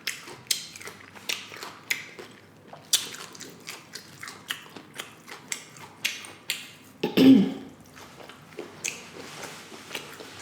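Close-up chewing and crunching of tortilla chips in loaded nachos, a crisp crunch every half second to second. A short voiced hum about seven seconds in.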